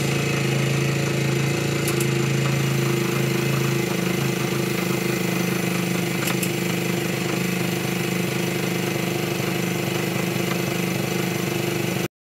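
Motorcycle engine idling steadily in first gear, turning the rear wheel and drive chain; it cuts off abruptly near the end.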